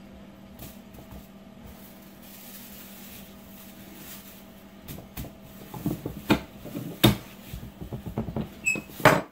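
Metal tortilla press and its plastic liner being handled: a steady low hum at first, then from about five seconds in plastic rustling and clattering knocks of the press, the loudest about seven and nine seconds in.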